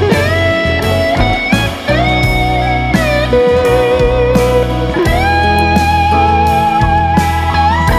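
Background music: an instrumental passage of a song, a slide guitar playing long notes that glide up into the next pitch over bass and a steady beat.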